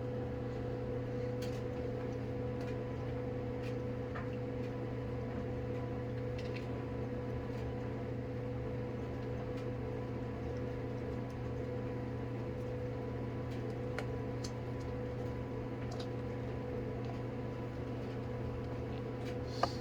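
A steady machine hum, like a fan or air conditioner running, with a few faint clicks.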